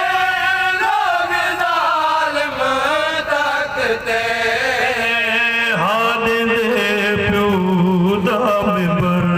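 Men's voices chanting a Shia mourning lament (noha) together, a group singing in unison before a lone male voice leads into a microphone. The sung line glides slowly between held notes and ends on a long low note.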